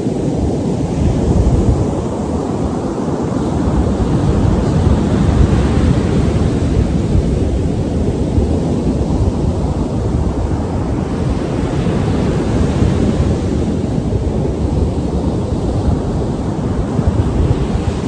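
Ocean surf breaking and washing on a sandy beach, overlaid by wind rumbling on the microphone: a loud, steady rush.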